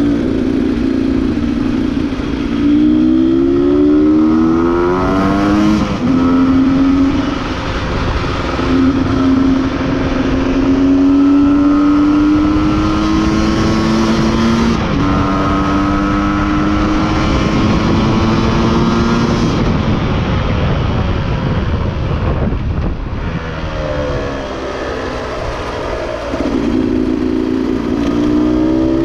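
Beta RR two-stroke enduro motorcycle engine pulling through the gears: its pitch climbs and drops back with each upshift several times, falls away about two-thirds in as the throttle is rolled off, then climbs again near the end.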